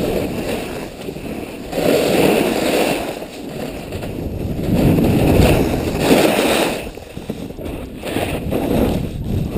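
Wind rushing over an action camera's microphone during a fast snowboard descent, surging and easing every couple of seconds. Under it, the board's edge scrapes over the snow through the turns.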